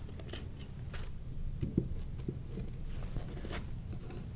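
Scattered light knocks, taps and scrapes of OSB subfloor panels with plastic bases being handled and set into place on a concrete floor, over a low steady hum.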